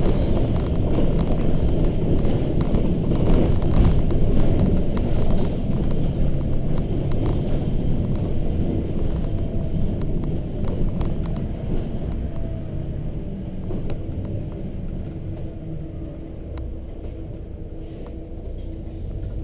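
Cabin sound of a Volvo B7RLE single-deck bus on the move: rear diesel engine and road rumble, with frequent clicks and rattles from the interior fittings. It grows quieter in the second half as the bus slows in traffic.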